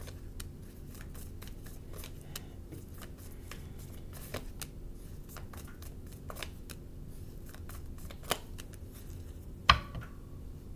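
Tarot cards being handled and laid down on a wooden table: a run of soft card flicks and clicks, then two sharper taps near the end, the second the loudest.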